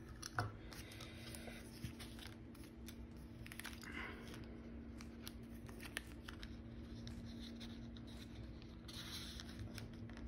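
Soft rustling and small clicks of paper and chipboard embellishment pieces being sorted and handled by hand, over a faint steady hum.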